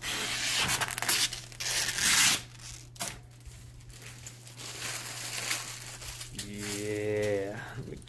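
Protective plastic film being peeled off a PC case's glass side panel, a crackling rip that is loudest in the first two seconds or so and then goes on more quietly.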